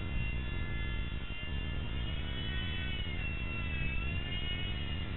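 Blade mSR micro RC helicopter hovering: a high electric-motor and rotor whine whose pitch wavers up and down as the throttle shifts, dipping around the middle, over a steady low rumble.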